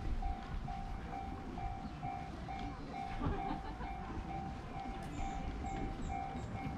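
Railway level-crossing alarm ringing: one electronic tone repeating in even strikes, about two a second, over a low rumbling background.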